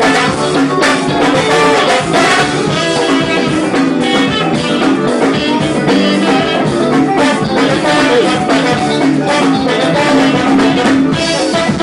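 Saxophone playing a melody live over a full band, with drums keeping a steady dance beat, in a forró style.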